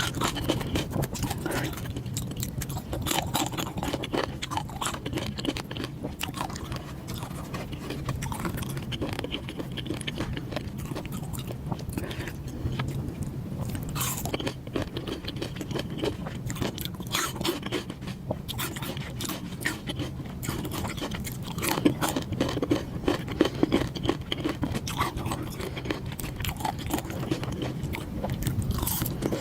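Close-miked eating sounds: chewing and biting food, with many small crackling clicks throughout over a steady low hum, and a few louder bites near the end.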